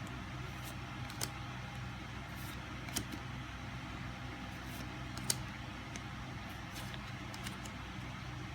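Trading cards being handled and sorted, with a few sharp clicks about a second in, about three seconds in and a louder one about five seconds in, over a steady low hum.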